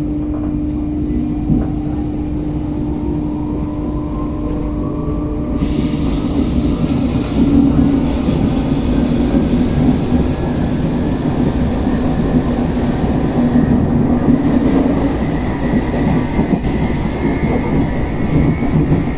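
RER B commuter train heard from on board as it pulls away: the traction motors whine, rising steadily in pitch as the train accelerates, and wheel and rail noise grows louder from about six seconds in. It is on this trip that the uploader notes a strange noise from the traction equipment.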